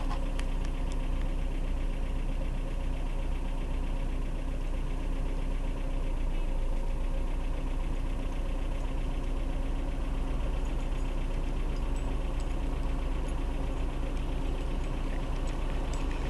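Car engine running steadily with an even low hum, no change in speed.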